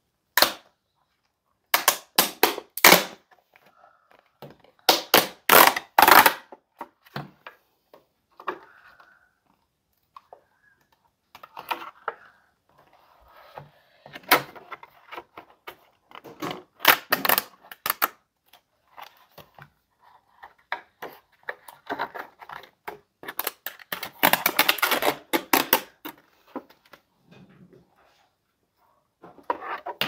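A new computer mouse's retail packaging being opened by hand: a series of sharp snaps and clicks in clusters, with a denser stretch of crackling and scraping later on.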